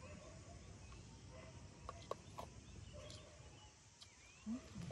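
Quiet outdoor ambience: a low steady background with faint, scattered chirps and a couple of light clicks about two seconds in.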